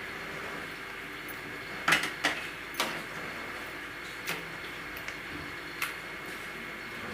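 Metal masher knocking against a stainless steel pan while mashing boiled jamun fruit, six or seven sharp clinks from about two seconds in, over a steady background hiss.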